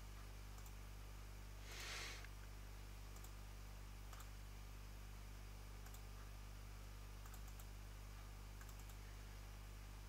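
Faint computer mouse clicks, scattered and irregular, over a steady low hum, with a short soft hiss about two seconds in.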